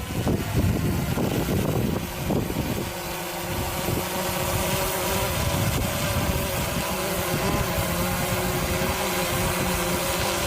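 DJI Phantom 3 quadcopter's propellers buzzing steadily as it hovers, a hum of several steady tones that comes in clearly about three seconds in. Strong wind buffets the microphone underneath.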